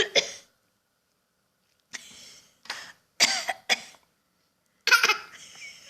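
A voice imitating a cough: a string of about five short, forced coughs starting about two seconds in, the last and loudest one trailing off.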